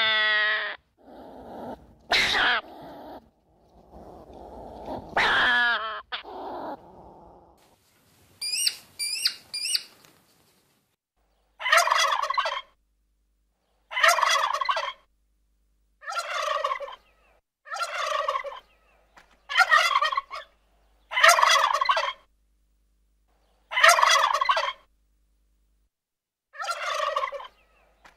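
Animal calls: a short call, about a second long, repeated about every two seconds from about eleven seconds in. Before it come other animal sounds, including a few quick high chirps.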